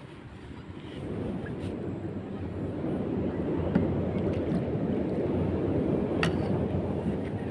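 Wind buffeting the microphone: a low rumble that builds about a second in and stays steady, with a few faint clicks.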